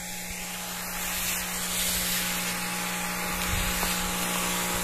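Homemade battery-powered electric sprayer running with both of its DC pump motors on, a steady hum, with the hiss of weedkiller spraying from the hose nozzle.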